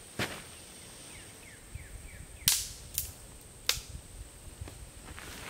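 Four sharp snaps, irregularly spaced, the loudest about two and a half seconds in and two more following within about a second.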